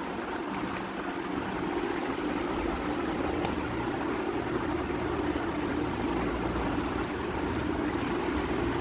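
Steady low rumbling background noise with no distinct knocks or events.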